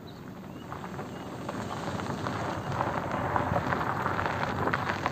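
Suzuki sedan's tyres crunching over a loose gravel and dirt track as the car approaches, a dense crackle that grows steadily louder.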